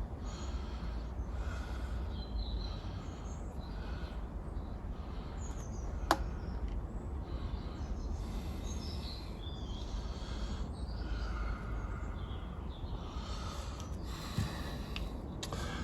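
Outdoor background: a steady low rumble with faint, scattered bird chirps, and a single sharp tap about six seconds in.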